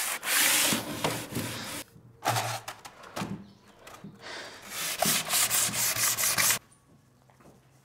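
Sandpaper rubbing on wooden boards by hand, in spells of back-and-forth strokes with short breaks. It stops about six and a half seconds in.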